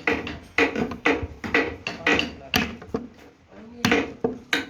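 Hand hammer blows in a workshop, about a dozen sharp strikes at an uneven two to three a second, each with a brief ring.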